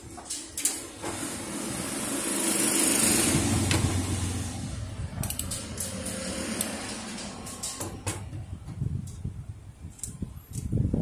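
An engine-like hum swells and fades over several seconds, loudest about three seconds in, likely a vehicle passing. Light clicks and knocks of the fuser web assembly's metal parts being handled come near the start and again near the end.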